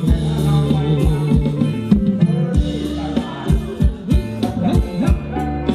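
Live Thai ramwong band music played loud through a large PA: a regular drum beat under a sustained melody and singing.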